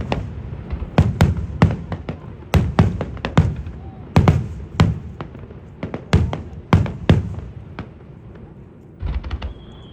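Fireworks display: a rapid, irregular run of sharp bangs from bursting aerial shells, each with a rumbling tail, thinning out after about seven seconds. A high, slightly falling whistle starts near the end.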